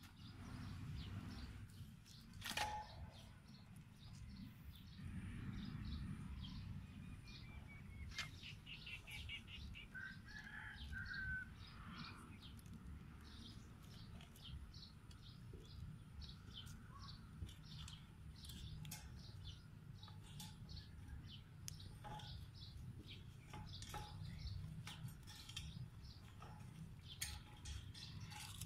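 Faint outdoor ambience: birds chirping now and then, with a short trill and a few calls in the middle, over a steady low rumble. Scattered light clicks and taps come from handling a wire fan guard on a plastic pipe.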